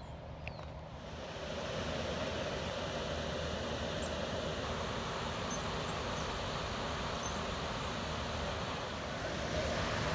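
Steady rush of river water flowing below a dam, growing louder about a second in and then holding even.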